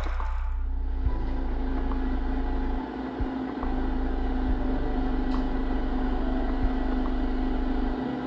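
Steady engine-like hum of idling vehicles, a low drone with a steady tone above it. The drone dips briefly about three seconds in, and a few soft clicks sound over it.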